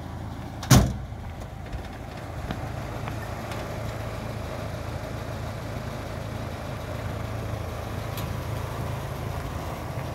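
A motor vehicle engine running steadily with a low hum. A single loud thump comes about a second in, standing well above the engine.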